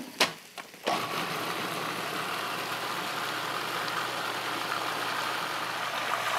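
Food processor lid clicking into place, then the motor starting about a second in and running steadily as it purees a thin apple and maple syrup sauce.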